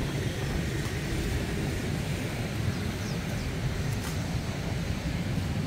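Steady low rumble of road traffic, motorbikes and cars passing along a busy street.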